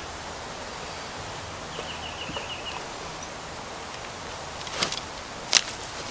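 Steady hiss of a canister backpacking stove burner under a pot. About two seconds in there is a quick run of about six high chirps, and near the end there are two sharp clicks.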